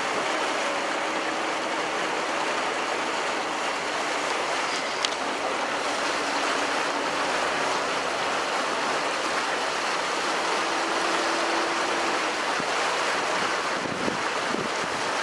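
Passenger ferry under way: a steady rush of water and wind on the microphone, with a faint low hum that comes and goes. A single short click about five seconds in.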